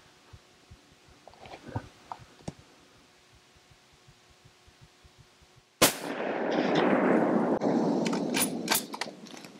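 A single rifle shot from a scoped hunting rifle, sharp and loud, about six seconds in. It is followed by about three seconds of loud noise that fades near the end, with a few sharp clicks in its last second.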